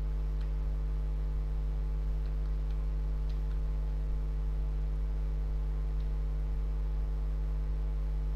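Steady electrical hum made of several constant tones, with a few faint clicks scattered through it.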